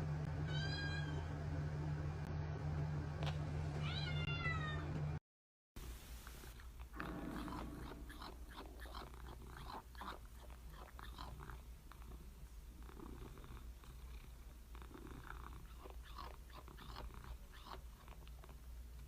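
A cat meowing twice, high-pitched, over a steady low hum. After a brief silence, a quieter stretch of scattered soft clicks and rustles.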